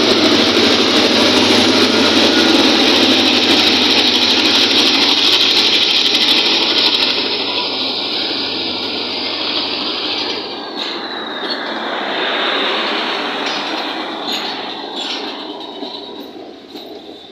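Diesel-electric locomotive accelerating close past, its engine running loudly under power, followed by passenger coaches rolling by. The noise fades as the train moves off, with a few sharp clicks and knocks from the coaches' wheels over the rail joints in the second half.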